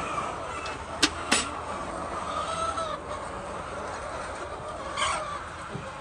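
A large flock of laying hens clucking and chattering steadily, with two sharp knocks about a second in and one louder hen call about five seconds in.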